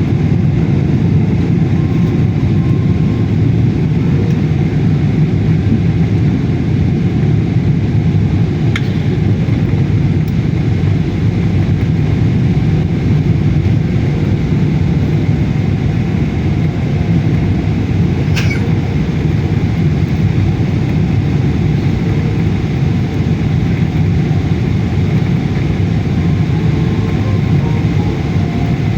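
Airliner's steady low rumble, even throughout, with two faint brief clicks about nine and eighteen seconds in.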